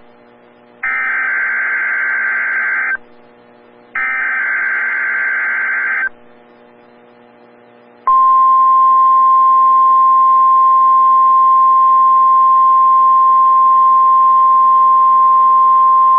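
Emergency Alert System SAME header data bursts, a harsh electronic screech in two bursts of about two seconds each with a short gap between, followed two seconds later by the NOAA Weather Radio 1050 Hz warning alarm tone. The alarm tone is a single loud steady tone that holds to the end, the signal that opens a required weekly test broadcast.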